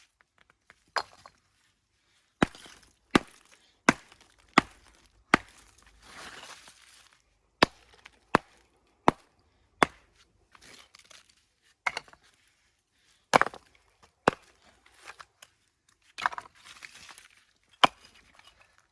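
Walling hammer striking stone: about fifteen sharp knocks at uneven intervals, several in runs about three-quarters of a second apart, with short gritty scrapes of stone being shifted between them.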